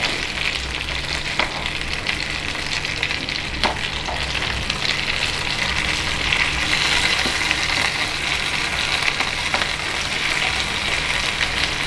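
Marinated chicken pieces shallow-frying in hot oil in a nonstick frying pan, sizzling steadily, with a few light clicks as a spoon turns the pieces over.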